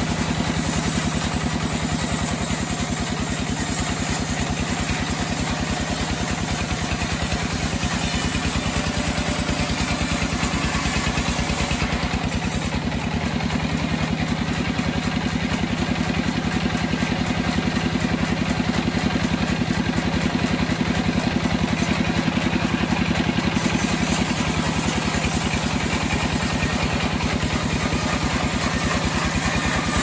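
Assembled band sawmill running steadily while its blade rips lengthwise through a large timber beam. A constant mechanical drone from the saw's drive is mixed with the hiss of the cut.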